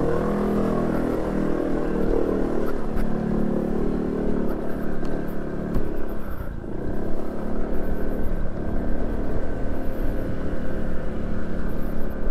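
Motorcycle engine running, its pitch rising and falling with the throttle for the first half. It dips briefly a little past halfway, then runs on unevenly.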